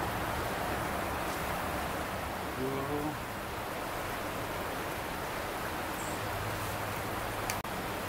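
Steady rush of a creek's flowing water.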